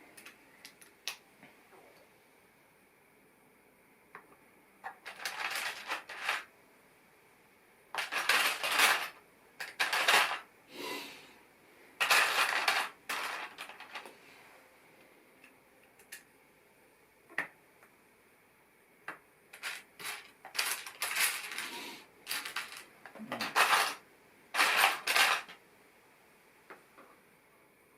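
Plastic LEGO pieces clicking and clattering as they are handled and fitted, in irregular bursts separated by quiet pauses.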